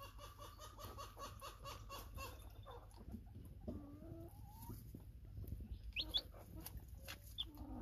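Mother hen clucking softly in a quick, even run, about four or five clucks a second, that stops after about two seconds. Later come a few short, high, rising chick peeps.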